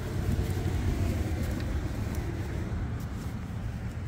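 A car passing on the street: a low rumble of engine and tyres that swells about a second in and then slowly fades.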